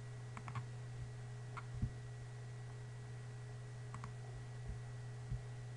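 A few scattered, faint computer mouse clicks over a steady low electrical hum.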